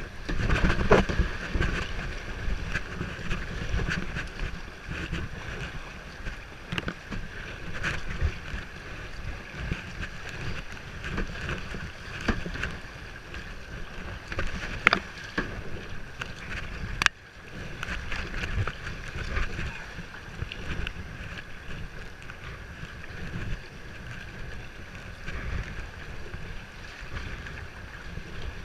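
River water splashing around a moving kayak, with wind rumbling on the microphone and a few sharp knocks.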